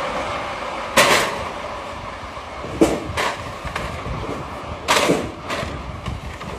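Rough scraping rumble of a plastic beer crate sliding down a ribbed concrete slope, fading as it reaches the bottom. Several sharp knocks come about one, three and five seconds in.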